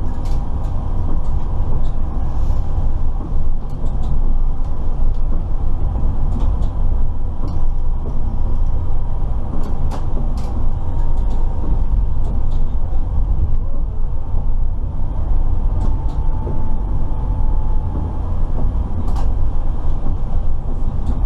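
Steady low rumble of a tram-train heard from inside its driver's cab while running at low speed, with scattered sharp clicks and a faint steady tone on top.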